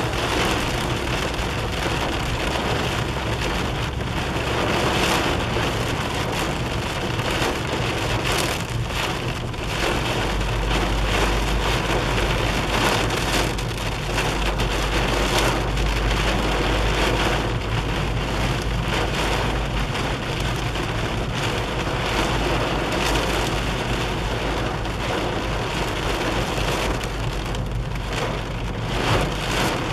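Heavy rain pelting a car's windscreen and roof, heard from inside the moving car as a dense, steady hiss, with a low rumble underneath that grows heavier for a stretch in the middle.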